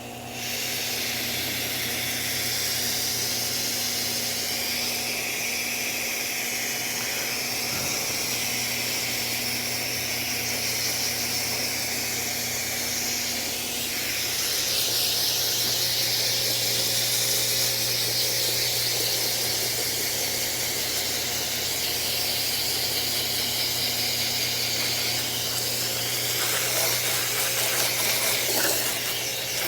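Water hose spraying a steady stream onto an air-conditioner condenser's panels and coil, a continuous hiss that gets a little louder about halfway through, over a steady low hum.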